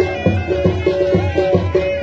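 Traditional folk music: a melody of held notes stepping between pitches over a quick, steady drum beat.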